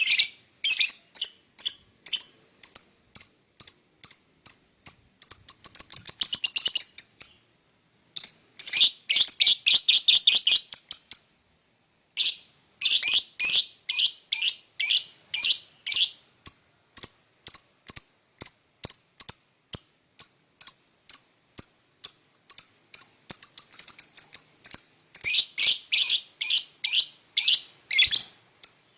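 Lovebird chirping: rapid, repeated high chirps, several a second, in runs broken by a couple of brief pauses.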